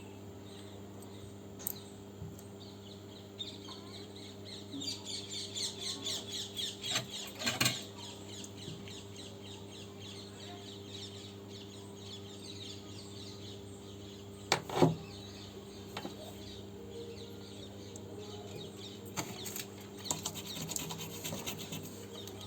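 Steady low electrical hum from the repair bench, with a few light clicks and, about five seconds in, a few seconds of fast, faint high-pitched crackling.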